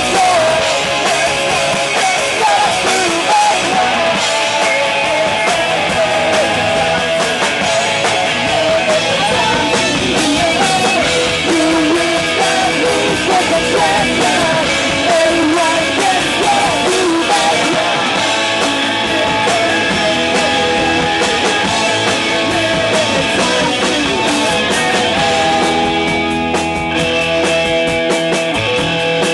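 Punk rock band playing a song: singing over distorted electric guitars, bass and drums. Near the end the drums thin out, leaving ringing guitar chords.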